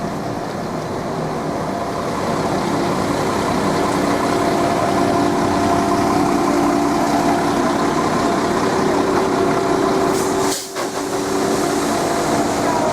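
Class 172 diesel multiple unit running close by, its diesel engines giving a steady hum with several held tones. The sound dips briefly about ten and a half seconds in.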